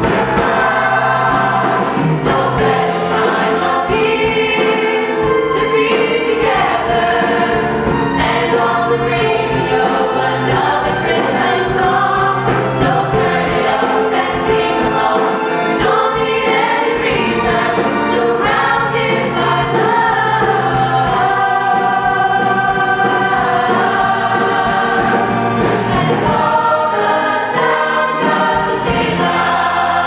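Mixed male and female vocal group singing a Christmas medley in harmony, amplified through microphones.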